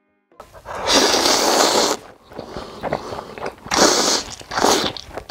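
Loud slurping of instant ramyeon noodles: one long slurp about a second in, then several shorter slurps.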